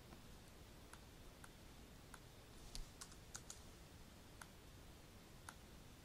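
Faint, single clicks from working a computer's mouse and keyboard, about ten of them, with several close together about three seconds in, over near silence.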